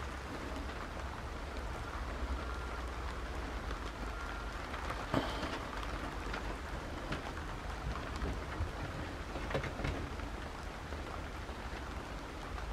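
Steady rain falling, with a few faint knocks, the clearest about five seconds in.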